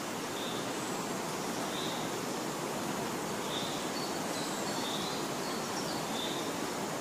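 Steady hiss of outdoor natural ambience with faint, short, high bird chirps about once a second.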